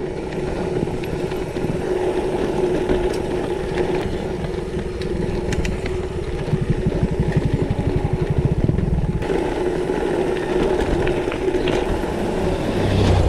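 Mountain bike rolling along a rough gravel lane: steady tyre rumble and crunch over the stones, with the bike's frame and fittings rattling.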